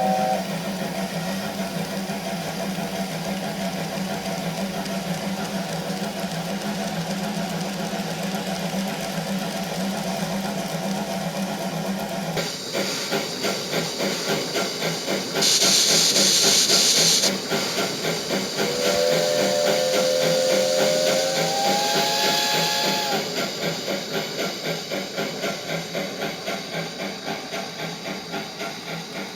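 Steam-locomotive sound effects for a Japanese 8620 class engine, played through a KATO Sound Box: steady exhaust chuffing, a loud blast of steam hiss lasting about two seconds around the middle, then a chime-like steam whistle held for about four seconds, rising slightly in pitch.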